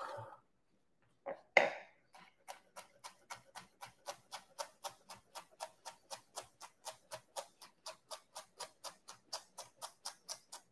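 Kitchen knife chopping cilantro on a cutting board in a quick, even rhythm of about five chops a second, after a single louder knock a second and a half in.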